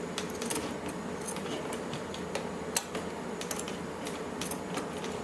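Scissors snipping and hands working at an Elmo Live toy's fur covering: scattered light, irregular clicks and ticks over a steady low background hum.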